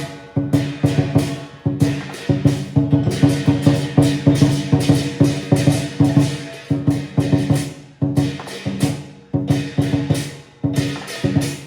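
Lion dance percussion: a large Chinese drum beaten in fast rhythmic strokes with crashing hand cymbals, the pattern phrased into short runs broken by brief pauses.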